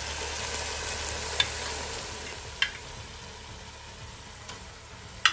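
Chicken and onion masala sizzling in oil in a pan. Three sharp clinks, the loudest near the end, are the stirring utensil striking the pan.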